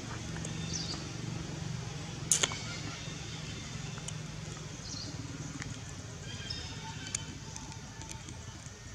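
Outdoor ambience: a steady low hum with a few short, high chirps and a sharp click a little over two seconds in.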